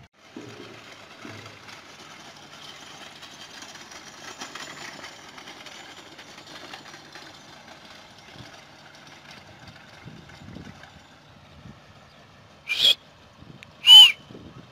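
A small wheeled cart carrying a metal milk can rattles steadily as a dog pulls it over a gravel road. Near the end come two short, loud calls about a second apart, the second falling in pitch.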